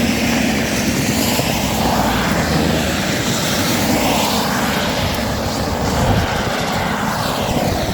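A steady, rushing engine noise with a slow sweeping, phasing quality, as of a motor passing by, with a low hum that fades after the first couple of seconds.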